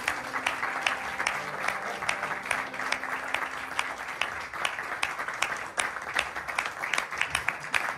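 A small audience applauding, with individual hand claps standing out in a dense patter.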